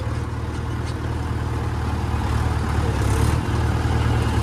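Diesel tractor engine running steadily, a low hum that slowly grows louder, with a brief dip about three and a half seconds in.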